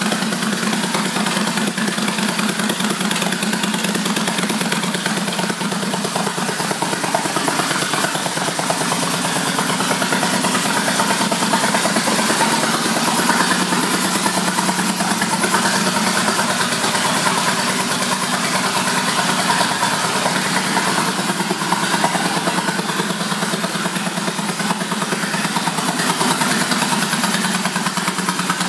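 2004 Kawasaki VN1600 Mean Streak's V-twin engine idling steadily through aftermarket exhaust pipes.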